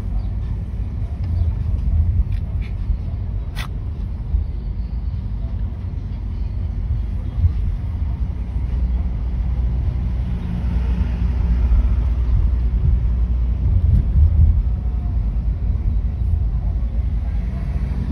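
Steady low rumble of a car in motion, heard from inside its cabin, with one sharp click about three and a half seconds in.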